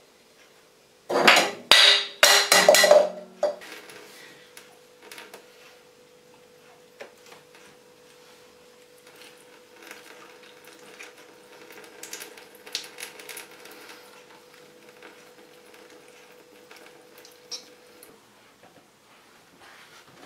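Loud clattering of hard objects for about two seconds, starting a second in. Quieter scattered knocks follow over a faint steady hum that stops near the end.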